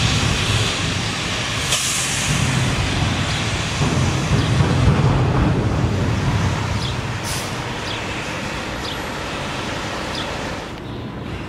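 New Flyer XDE60 articulated diesel-electric hybrid bus pulling away, its engine rumbling as it accelerates, then fading over the hiss of traffic on the wet road.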